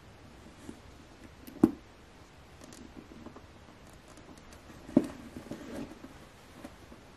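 A Louis Vuitton coated-canvas Speedy bag being handled and turned, with faint rustling and two sharp taps about three seconds apart.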